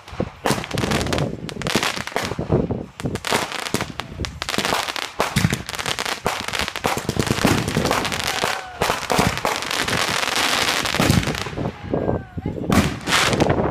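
Aerial consumer fireworks going off in quick succession: a dense run of bangs and crackling bursts, thickest a little past the middle.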